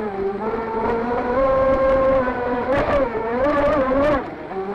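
Electric motor of a 38-inch RC boat whining, its pitch rising and falling as the throttle changes, with water hissing along the hull and a few brief splashes.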